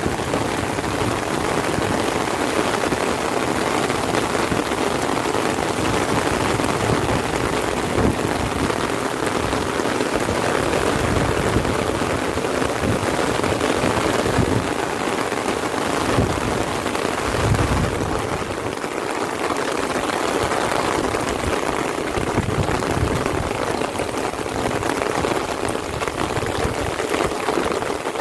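Heavy rain pouring down, a steady dense hiss of drops with no letup.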